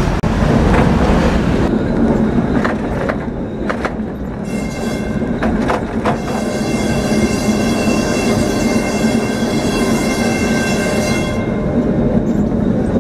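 Lisbon tram 28, a vintage yellow Remodelado tram, running along street rails and heard from on board: a steady low rumble with a few sharp clicks. From about four and a half seconds in, a steady high-pitched squeal of several tones joins in and stops about two seconds before the end.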